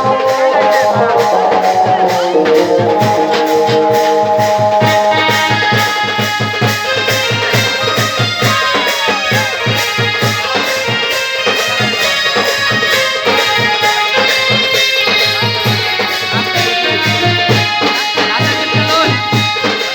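Background music with a steady beat and sustained melodic notes, growing fuller about five seconds in.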